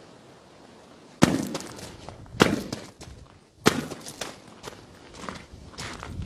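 Boots crunching on loose gravel as a person walks: after about a second of quiet, three heavy steps about a second apart, then lighter ones.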